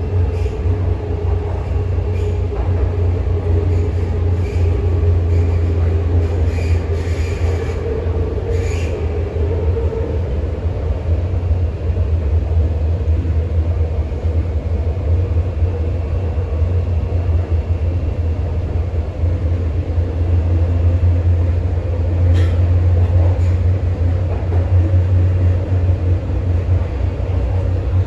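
MTR Kwun Tong Line C-train running between stations, heard inside the carriage: a steady deep rumble of the car on the rails. A faint steady tone fades away about ten seconds in, and there are a few light clicks and rattles.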